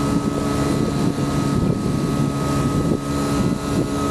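An engine running steadily on a work boat's deck: an even, low hum with a faint, steady high whine above it.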